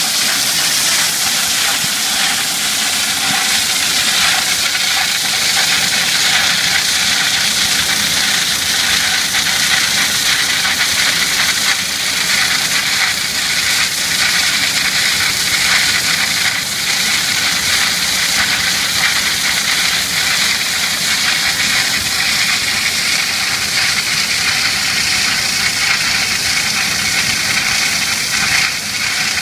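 Diamond wire saw running its wire through a granite block, with cooling water spraying at the cut: a loud, steady hiss that carries on unbroken.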